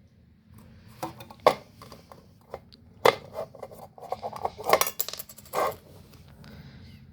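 Irregular clatter of small hard parts being handled: scattered clicks, knocks and short scrapes, the sharpest about one and a half and three seconds in.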